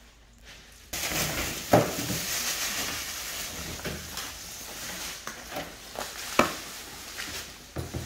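A heap of medium shrimp being tipped out and spread across a metal table: a continuous wet rustling and crackling with scattered clicks and knocks, starting abruptly about a second in.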